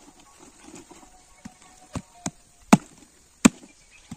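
Machete chopping into a whole jackfruit: about five sharp strokes, the two loudest a little past the middle.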